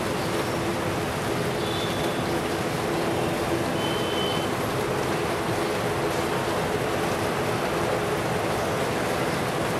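Steady rushing noise of rain mixed with the running of jet aircraft engines, a faint steady hum underneath. Two brief faint high tones sound about two and four seconds in.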